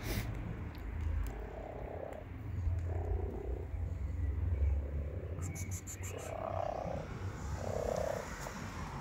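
Calico kitten meowing in about four short, low calls, over a steady low rumble.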